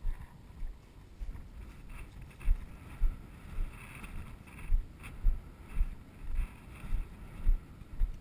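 Walking footsteps along a grassy trail, a dull thud about twice a second, with tall grass brushing and swishing between the steps.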